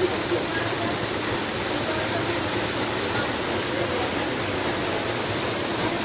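Small natural waterfall pouring down a rock face into a shallow pool: a steady, even rush of falling and splashing water.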